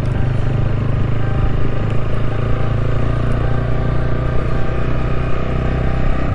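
Yamaha YB125Z DX motorcycle's 125 cc single-cylinder four-stroke engine running steadily under way, with no change in pitch.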